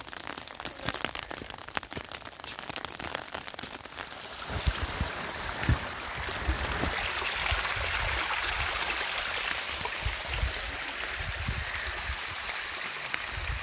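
Rain pattering in fine scattered drops. About four and a half seconds in, a louder steady rush of muddy rainwater running down a rocky channel takes over, with a few low thumps.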